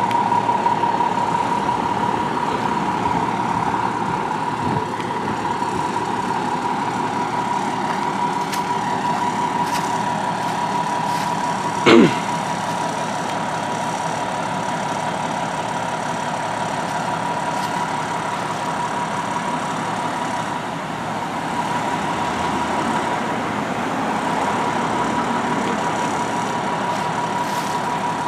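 Fire engine idling at the roadside: a steady engine rumble with a constant high-pitched tone running through it. About twelve seconds in there is a single short, loud blip.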